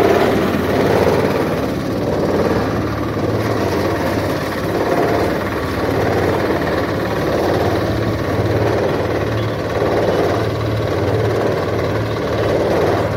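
Mild-steel grain thresher running steadily under load, a continuous mechanical hum and rush of straw and chaff being thrown out, swelling and easing a little every second or two.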